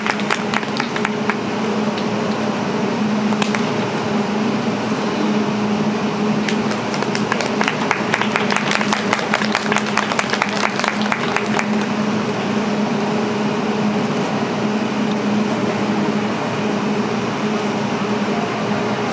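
Audience handclapping, scattered at first, then a stretch of denser clapping from about six to eleven seconds in, over a steady low hum.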